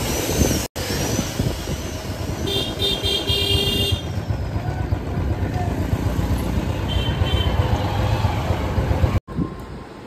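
Motorcycle ride in town traffic: the bike's engine runs with road and traffic noise. A vehicle horn honks for over a second about two and a half seconds in, and again briefly near seven seconds.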